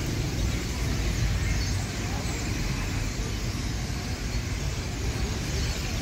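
Dense chatter of a large flock of blackbirds (pájaros prietos) gathering to roost in the trees, over a steady low rumble of street traffic.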